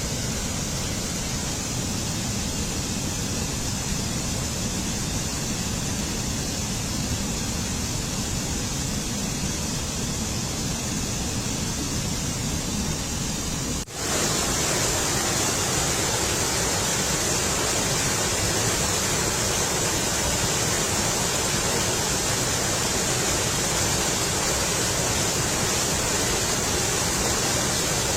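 Waterfall rushing steadily. About halfway through the sound drops out for a moment and returns louder and brighter.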